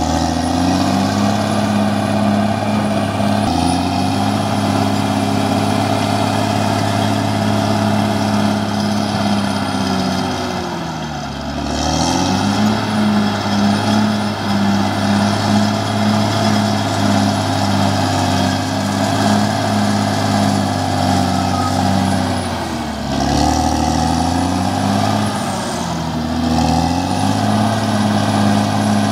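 CAT D6R XL bulldozer's diesel engine running hard under load. Its pitch drops briefly and climbs back twice, about a third and three quarters of the way through, with a thin high whine running above the engine.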